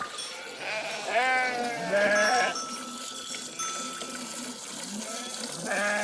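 Sheep bleating: a few wavering bleats about a second in, around two seconds, and again near the end.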